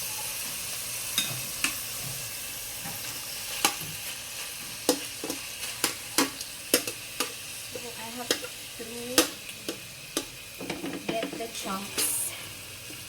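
Tuna sautéing with onions and garlic in a frying pan: a steady sizzle, while a cooking utensil stirs and spreads it, clicking and scraping against the pan many times.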